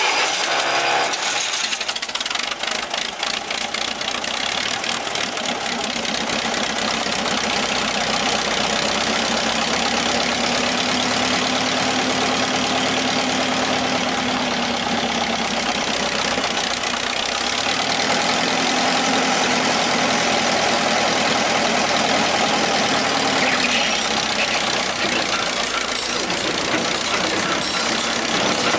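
The four-cylinder Wisconsin engine of an old John Deere 216 wire-tie hay baler running steadily just after starting, with some clattering in the first few seconds. Its pitch eases up and down a little around the middle.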